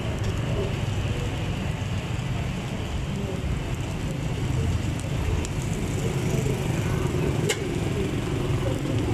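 Steady street background noise: a low traffic rumble with faint voices, and a few crinkles and ticks of thin plastic bags being handled.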